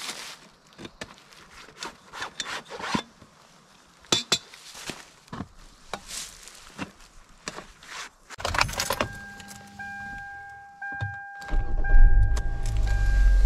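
Metal-framed folding cot being set up on dry leaves: scattered clicks of the frame and rustling. Then a car's warning chime sounds steadily with short breaks, and near the end the car engine starts and runs.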